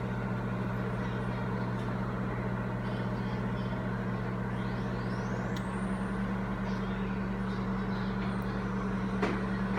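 Microwave oven running with a steady hum while it heats an egg on low power (setting 3); the hum grows a little stronger about halfway through.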